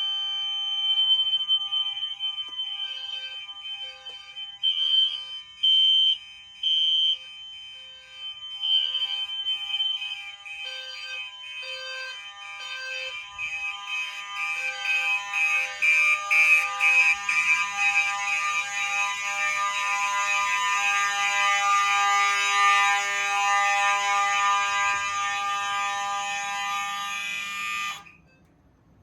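A fire alarm system's horns, horn-strobes and low-frequency sounder all going off at once on continuous. Several steady tones and pulsing patterns overlap and build up, loud, then all cut off together near the end.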